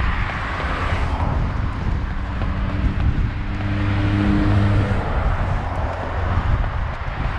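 Wind buffeting a moving microphone over road noise. A vehicle's engine hum swells and fades between about three and five seconds in, as a car goes by.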